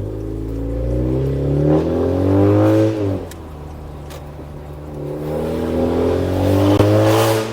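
2018 Honda Accord 2.0T's turbocharged four-cylinder engine, breathing through a catless downpipe, revving up twice. The pitch climbs for a couple of seconds, drops off sharply about three seconds in, then climbs again and falls away near the end.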